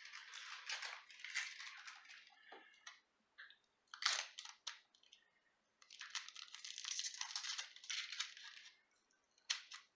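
Dry, papery onion skin crackling and tearing as it is peeled off a halved onion by hand, in several irregular stretches with short pauses between.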